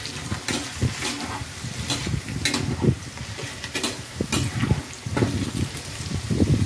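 Taro root slices deep-frying and browning in hot oil with a continuous sizzle, while a perforated steel skimmer stirs them, scraping and clinking against the pan again and again.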